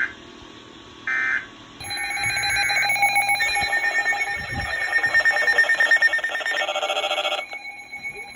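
Weather-radio alert tones: the last of a series of short digital data bursts, then about five and a half seconds of a loud, rapidly pulsing alert signal made of several tones at once, which stops suddenly.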